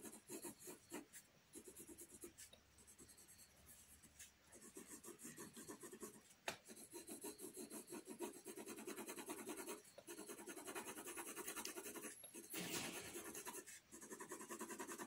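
6B graphite pencil shading on paper: faint, rapid back-and-forth strokes of the lead rubbing and scratching across the sheet, with one sharp tap about six and a half seconds in.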